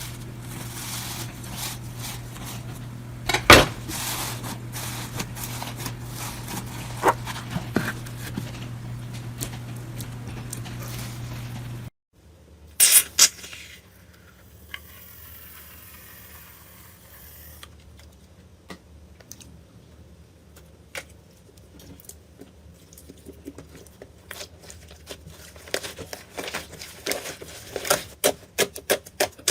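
Slime being pressed and worked by hand, a dense run of crackles and clicks. Over the first part there is a steady low hum and one loud knock, and after an abrupt change the clicks grow thicker toward the end.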